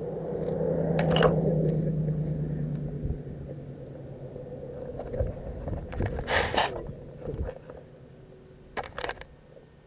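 A small drone's low motor hum fading out over the first few seconds, then handling noise on the drone's body: scattered knocks and scrapes and a louder rustle about six seconds in.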